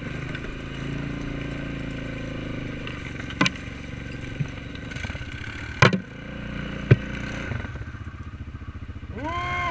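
Single-cylinder ATV engine running at low speed through brush, with three sharp knocks; the loudest comes about six seconds in. The engine settles to a slower, pulsing idle about three-quarters of the way through, and a person calls out near the end.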